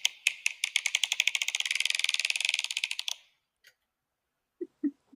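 A run of sharp, light clicks that starts spaced out and speeds up into a fast rattle, stopping about three seconds in. A single click follows, then two short, soft, low pops near the end.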